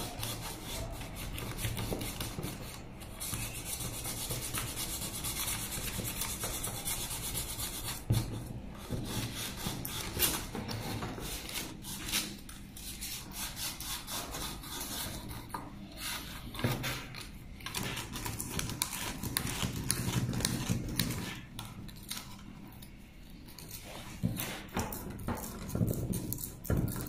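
Sandpaper rubbed back and forth in quick strokes over the plastic cable sheaths and entry ports of a fiber optic splice closure, roughening them so the heat-shrink sleeve will seal. There are a few brief lulls between bouts of rubbing.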